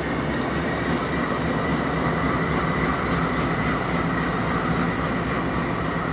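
Several diesel freight locomotives rolling slowly past, their engines running with a steady low drone and a faint steady high whine over it.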